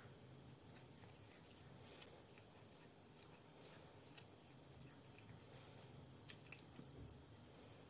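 Faint chewing: a pet eating fresh grass, with small scattered crunching clicks.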